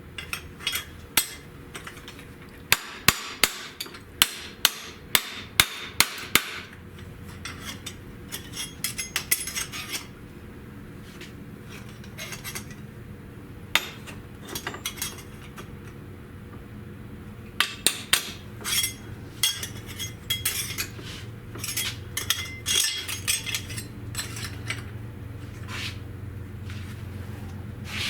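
Hammer striking sheet metal: a run of about eight sharp, ringing blows at a steady pace a few seconds in, then more groups of lighter and heavier blows later on.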